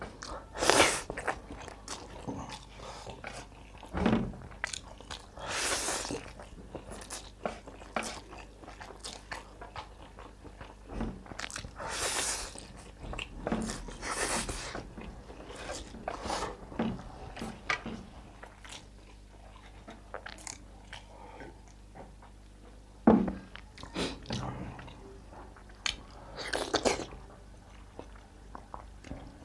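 Close-miked eating of spicy instant noodles: steady wet chewing with small clicks, broken by several long, loud slurps as mouthfuls of noodles are sucked in.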